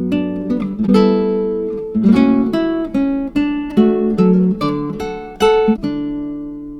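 Background music of acoustic guitar strumming chords, ending on a last chord about six seconds in that rings out and fades.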